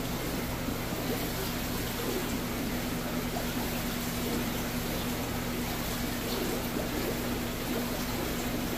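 Steady running-water trickle from aquarium filters, under a constant electrical hum from the tank pumps.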